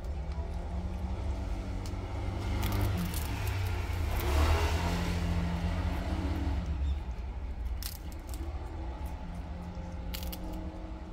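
A steady low, motor-like rumble with a humming tone, swelling about four seconds in and easing off after. Over it come a few short, crisp crunches as prairie dogs nibble on wafer treats.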